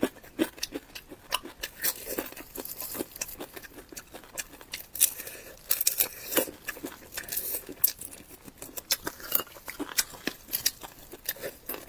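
Close-miked eating sounds: chewing and biting, heard as many short, irregular clicks and smacks.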